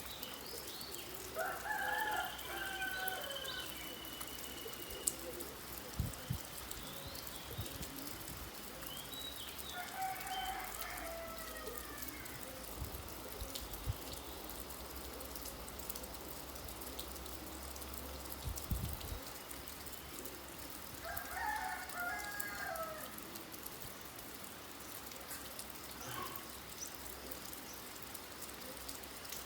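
Steady rain falling, with a bird giving three loud calls of about a second and a half each, spread evenly across the stretch, and fainter high chirps between them.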